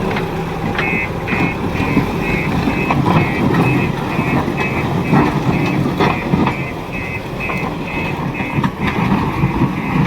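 Construction machine's reversing alarm beeping rapidly, about three high beeps a second, over the low running of its diesel engine.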